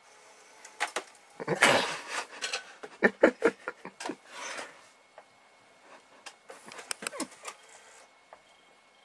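A cat swatting and pawing at a bag: an uneven run of taps, scuffs and rustles, busiest in the first half.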